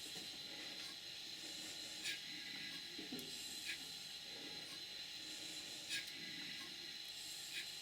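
Large duplex steam boiler feed pump running slowly, with a steady hiss from its drive and a sharp click about every second and a half to two seconds as it strokes.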